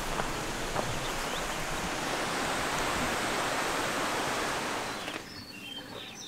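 Steady rushing outdoor noise, even and unbroken, that cuts off suddenly about five seconds in. After that it is quieter, with small birds chirping.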